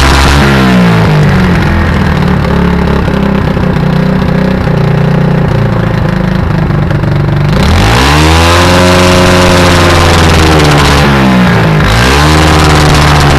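1984 Yamaha SR125's single-cylinder four-stroke engine and exhaust: the revs drop back to a lumpy idle, then it is revved up about seven seconds in, held high for a few seconds, let fall and blipped again near the end. It misfires at higher revs with a popping, anti-lag-like note, which the owner puts down to an intake leak.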